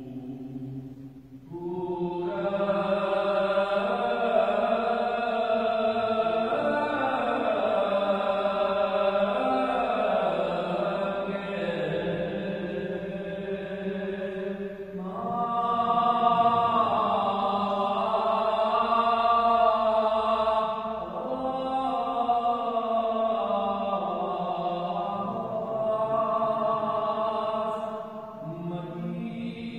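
Unaccompanied male voices chanting an Armenian Apostolic liturgical hymn in long, slowly moving phrases, with a short break about a second in and brief breaths between phrases.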